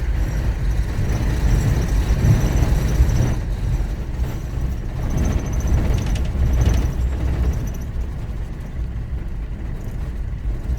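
A vehicle driving on a corrugated dirt road, heard from inside: a steady low rumble from the washboard surface, with bursts of rattling between about four and seven seconds in.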